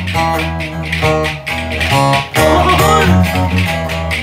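Bağlama (saz) played in bozuk düzen tuning, a run of plucked and strummed notes, over the fast, even clacking of folk spoons (kaşık) keeping the rhythm.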